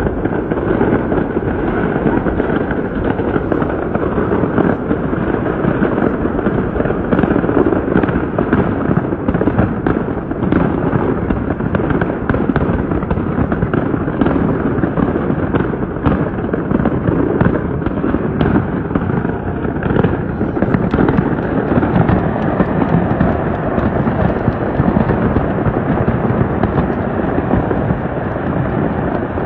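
Fireworks going off in a dense, continuous run of bangs and crackles, heard at a distance through a phone's microphone.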